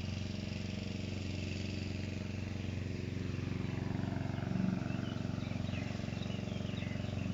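A motor engine running steadily in the background, an even low hum that holds the same pitch throughout, with faint short high chirps in the second half.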